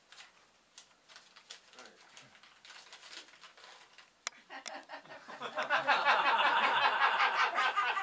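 A folded paper medicine insert rustling and crinkling as it is unfolded, with a sharp crackle a little past four seconds in. From about five seconds in a much louder, fuller sound takes over to the end.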